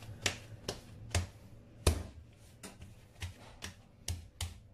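Hands slapping and pressing a ball of parotta dough on a granite countertop: short soft pats repeated about twice a second, with one louder slap about two seconds in.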